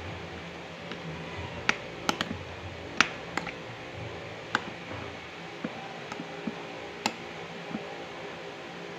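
Metal spoon clinking against a bowl of rice porridge: a dozen or so sharp, irregular clicks, a few louder ones about two and three seconds in.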